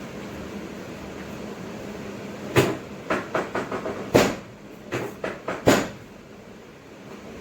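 A quick run of about ten sharp clicks and knocks over some three seconds, the three loudest about a second and a half apart, over a steady low hum.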